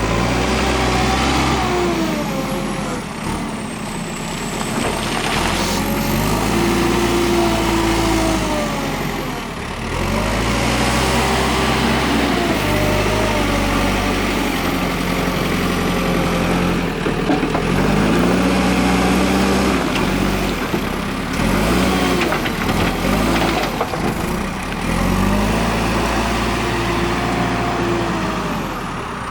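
JCB 3CX backhoe loader's diesel engine working, its engine speed rising and falling in repeated cycles a few seconds long as the machine works under load.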